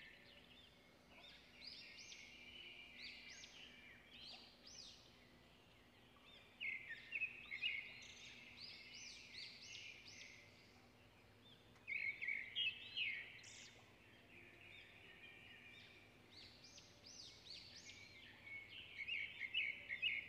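Birds singing: bursts of quick, repeated chirps and trills with short rising whistled notes, coming in bouts every few seconds.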